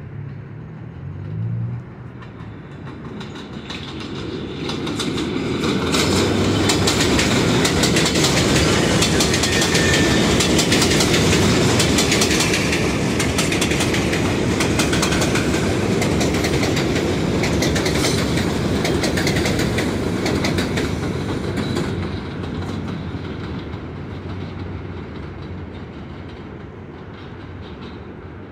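R62A subway train running through the station on the express track without stopping: wheel rumble and a rapid clickety-clack of wheels over the rails build over the first few seconds, stay loud for about fifteen seconds as the cars pass, then fade away.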